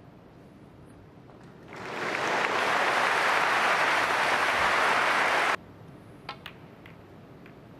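Snooker audience applauding a pot, starting about two seconds in and cutting off suddenly a little over halfway through, followed by two faint clicks.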